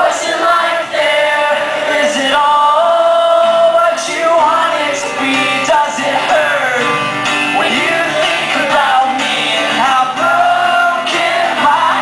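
A live male lead vocal singing over a strummed acoustic guitar, one continuous stretch of a solo acoustic song.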